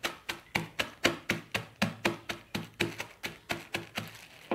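A long wooden pestle pounding peanuts in a double plastic bag, about four sharp knocks a second, coarsely cracking the peanuts in half. The knocks stop near the end.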